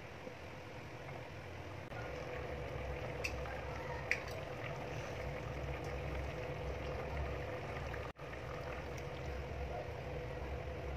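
A wooden spoon stirring a simmering chicken masala in a steel pot, with a few light knocks on the pot and liquid poured in from a small steel cup, over a steady low rumble that begins about two seconds in.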